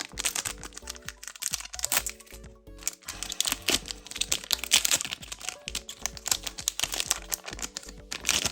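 Foil trading-card booster pack wrapper crinkling and crackling as it is opened and handled, over background music.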